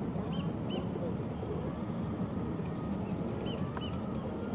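Steady low rumble of a large cargo ship's engines as it passes close by. A small bird gives short high chirps in pairs, twice.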